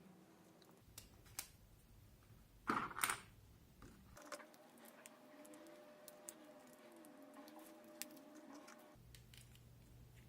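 Quiet handling of a digital caliper and its packaging: scattered small clicks, with one brief louder rustle or scrape about three seconds in.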